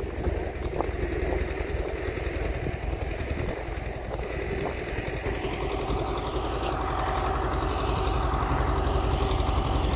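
Tractor's diesel engine running steadily with a low, pulsing throb as it pulls a potato planter, getting a little louder in the second half.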